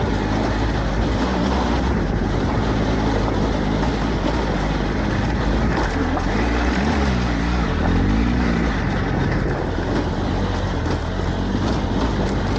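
Triumph Tiger adventure motorcycle's three-cylinder engine running under throttle up a steep rocky track, held on the gas to keep moving. The engine pitch rises and falls a few times about halfway through as the throttle is worked over the stones.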